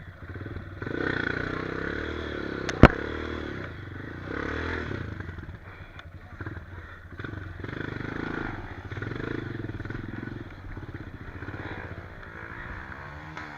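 Off-road motorcycle engine revving in repeated bursts while a trail bike works up a rocky climb. There is one sharp knock about three seconds in.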